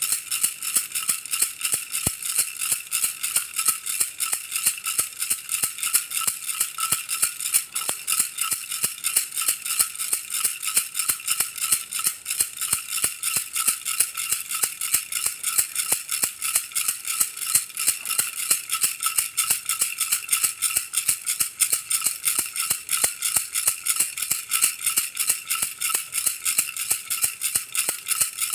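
Baby rattle shaken steadily in a quick, even rhythm, giving a bright, high-pitched rattling.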